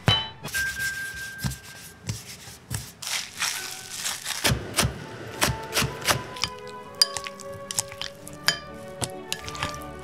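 Kitchen work sounds: a run of light knocks and clinks of utensils and dishes, with a steady hiss through the first few seconds, over soft background music.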